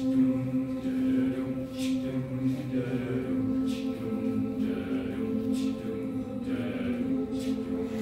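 Mixed-voice high school choir singing slow, long-held chords, with soft sung 's' consonants hissing about every two seconds.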